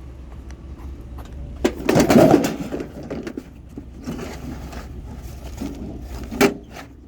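Vehicle running with a steady low rumble, with a loud clatter about two seconds in and a sharp knock near the end.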